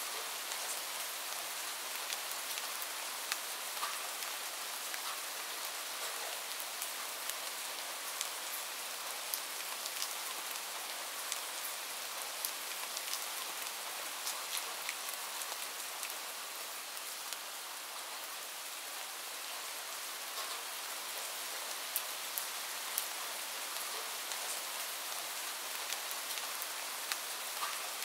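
Steady rain ambience: an even hiss of falling rain dotted with the small ticks of individual drops.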